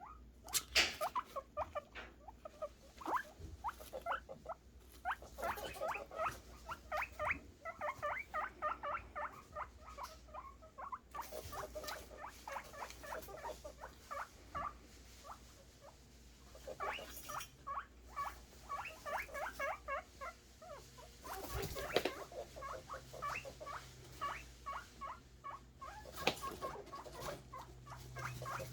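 Guinea pig boars wheeking for food: long runs of short, high squeaks, several a second, broken by a few brief pauses.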